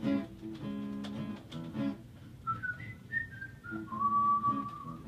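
Acoustic guitar playing a picked song intro, joined about two and a half seconds in by a whistled melody that glides through a few notes and ends on one long held note over the guitar.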